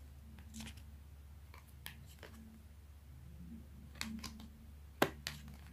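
Tarot cards being shuffled and handled by hand: a few short flicks and snaps of card stock, the sharpest about five seconds in.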